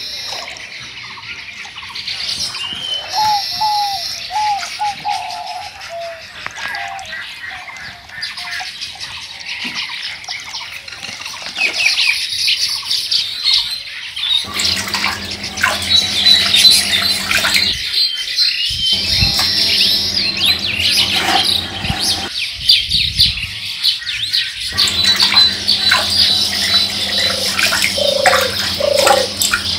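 Birds chirping and calling, many at once. A low steady hum joins about halfway through, and a few lower calls sound near the end.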